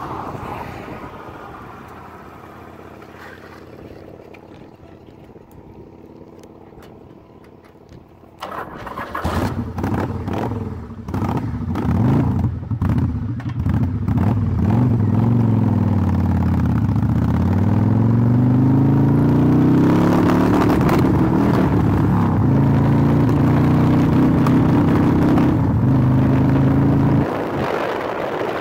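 1988 Yamaha Virago 1100's V-twin engine idling quietly, then knocks and rattles about eight seconds in, then the engine revving and pulling away, its pitch falling and climbing as it shifts and accelerates, and running steadily at road speed. Near the end it eases off.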